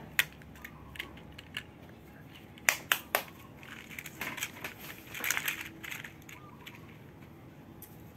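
Sharp clicks and clacks of small red plastic toy pieces being snapped together and knocked on a wooden table, several in the first three seconds, followed by a stretch of rustling and scuffing.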